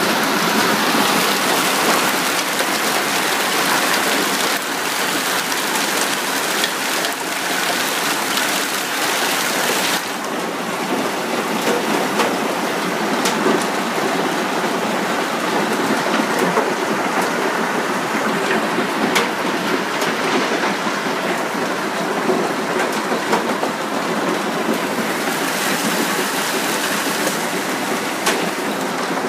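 Hailstorm: hailstones pelting clay roof tiles in a dense, steady clatter with many sharp individual hits.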